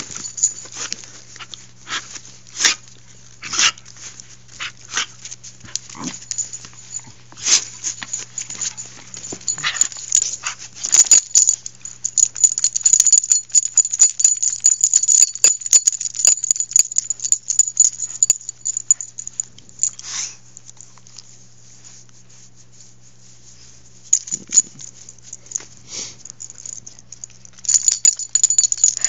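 Australian cattle dog play-fighting with a person's hand: dog sounds amid many quick clicks and scuffles, with a quieter lull about three-quarters of the way through.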